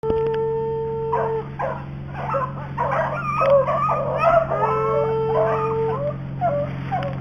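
A pack of rabbit hounds baying on a rabbit's trail: overlapping short barks and chops, with two long drawn-out howls, one near the start and one around the middle. A steady low hum runs underneath.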